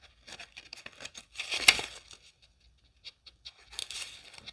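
Playing cards rustling and sliding against each other as they are handled, in several short scrapes, the loudest about one and a half seconds in and another near the end.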